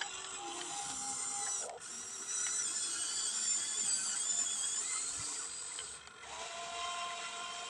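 Small electric motors and plastic gearboxes of a radio-controlled toy construction vehicle running, a high whine that shifts in pitch and cuts out briefly about two seconds in and again about six seconds in.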